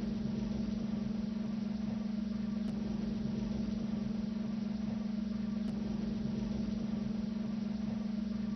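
Airwolf helicopter cockpit interior ambience: a steady, unchanging low hum over an even hiss, with a faint tick about every three seconds.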